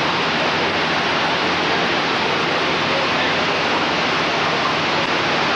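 Steady, even rushing noise on a camcorder's microphone outdoors, with no single event standing out.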